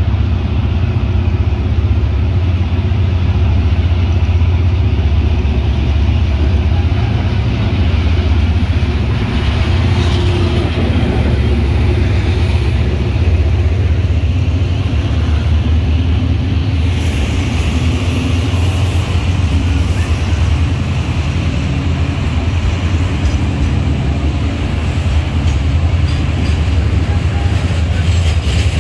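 Hitachi diesel-electric locomotive pulling a container freight train past close by, its engine and wheels making a loud, deep, steady rumble. Through the later part the loaded container wagons are rolling past on the rails.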